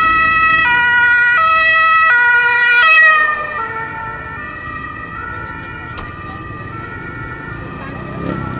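Emergency vehicle's two-tone siren, alternating between two pitches. It is loud for about three seconds, then its pitch dips slightly and it goes on more faintly as the vehicle passes and moves away.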